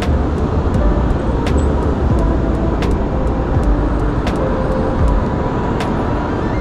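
City street traffic with a bus going by: a steady low engine rumble and road noise, with a few faint whining tones. Short sharp clicks come through it every half second or so.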